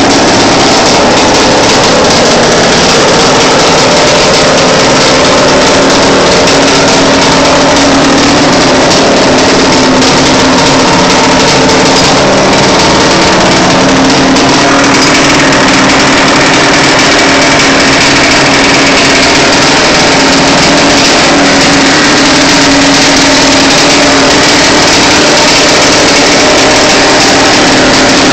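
1991 Honda CR250's 250 cc two-stroke single-cylinder engine running loud and steady, its first run after a rebuild.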